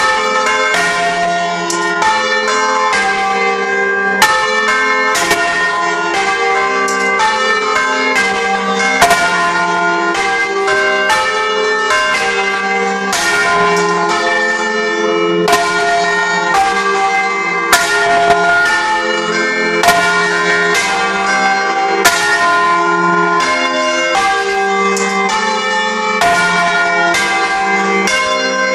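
A set of tuned church bells is rung full circle by hand with ropes and heard close up from inside the bell chamber. The bells strike one after another in quick succession at several different pitches, and each note rings on and overlaps the next.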